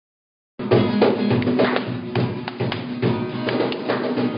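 Live acoustic band music: two acoustic guitars strummed in a steady rhythm with sharp percussive strokes. It starts abruptly about half a second in.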